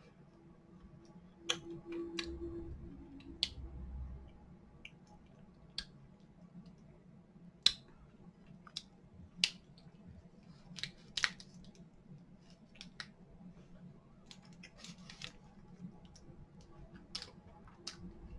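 Sparse sharp clicks and light taps of hand handling while a cream-filled snack cake is cut open, with a couple of soft thumps about two to four seconds in.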